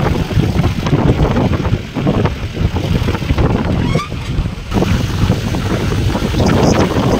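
Wind buffeting the microphone at an open side of a moving vehicle, over the vehicle's engine and road noise. The sound is continuous and gusty, rising and falling in strength.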